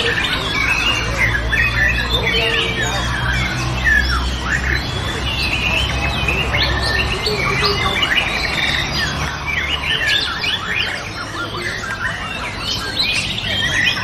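White-rumped shamas singing in dense, overlapping bursts of quick whistles, trills and chattering, as in a songbird contest, over a low background hum that fades about halfway through.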